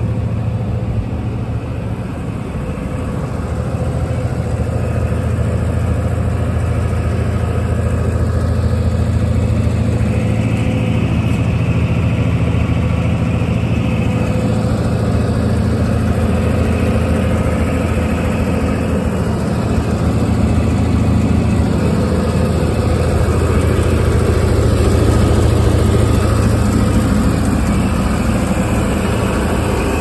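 New Holland LS180 skid steer's diesel engine idling steadily.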